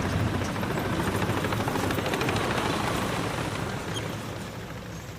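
A column of military tanks passing: heavy engine rumble and the rapid clatter of tracks, fading steadily over the last couple of seconds as the vehicles move away.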